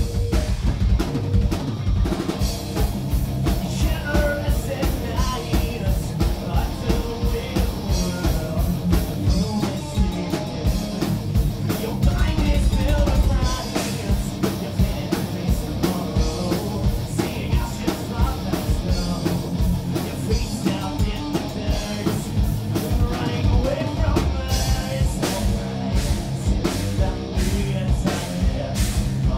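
Live rock band playing a song: electric guitar, bass and drum kit with a steady beat, and a male singer singing into a microphone.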